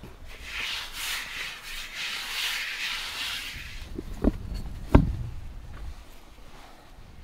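Hands spreading flour across a wooden board, a dry rubbing hiss for about three seconds. It is followed by two sharp knocks, the second louder, as dough is pulled out of a stainless steel bowl.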